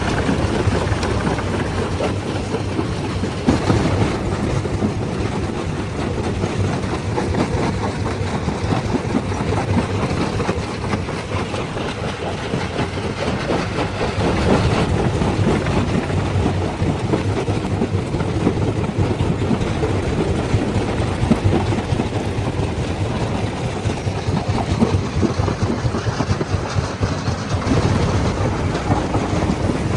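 Stone crushing machine running, a steady heavy machinery din with many small knocks of rock scattered through it.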